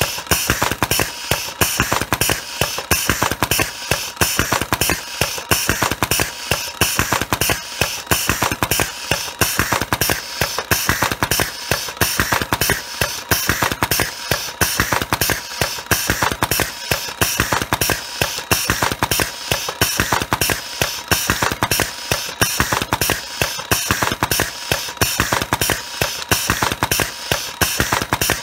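Automatic cigarette-tube filling machine running continuously, its mechanism clacking in a fast, even rhythm as it fills and ejects one cigarette after another, with a faint steady tone underneath.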